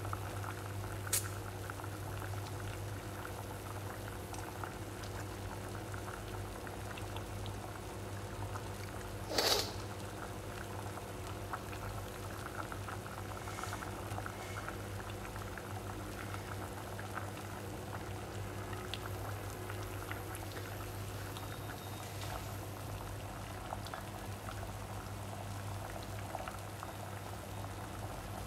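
Water at a rolling boil in a stainless steel pot of sliced green squash, bubbling and crackling steadily over a steady low hum. There is a single click about a second in, and a brief louder noise about nine and a half seconds in.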